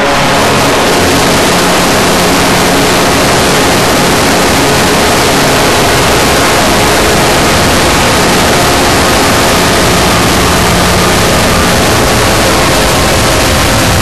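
NHL arena goal horn sounding loud and unbroken, its steady tone over a dense wash of noise.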